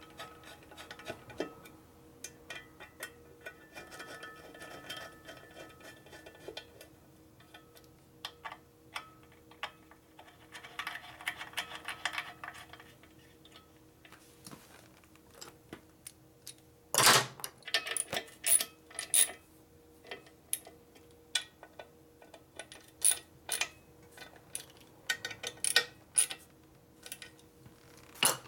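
Hand tools and small metal parts clicking and clinking while an air cleaner is bolted onto a motorcycle engine, with a sharp metallic knock about 17 seconds in, over a faint steady hum.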